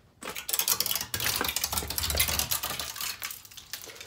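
Icicles along a metal carport's edge being knocked and broken off by hand: a dense run of clinking and cracking ice that eases off near the end.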